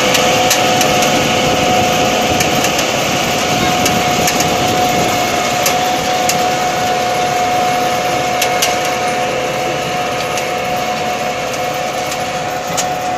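Farm tractor running under load as it pulls a tractor-mounted cassava harvester through the soil: steady engine and machinery noise with a constant whine, scattered short clicks, and fading slightly toward the end.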